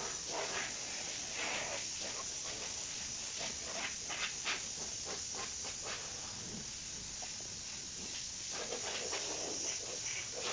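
Steady hiss with soft, irregular swishes of a towel being wiped over wet car paint.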